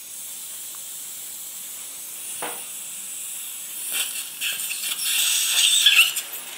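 Surgical suction tip hissing in the patient's mouth as it draws off blood and saliva from the opened flap. It gets louder and more irregular from about four seconds in, with a wavering whistle, and there is a single light click of an instrument before that.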